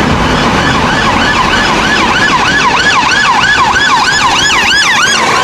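Police car siren in a fast rising-and-falling wail, about two to three sweeps a second, over a bed of traffic-like noise. It is an edited-in sound effect that starts and stops abruptly.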